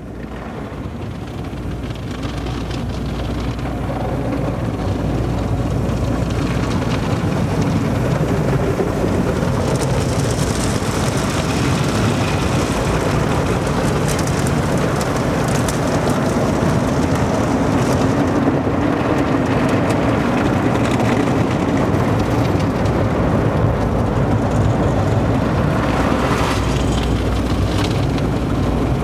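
Automatic car wash heard from inside the car: water spray and soap hitting the windshield and roof as a steady rushing noise over a low hum, fading in over the first few seconds.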